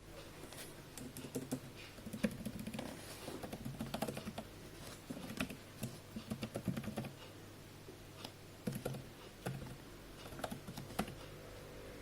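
Typing on a Logitech K380 Bluetooth keyboard: quiet key clicks in quick runs, then a few scattered single keystrokes in the second half.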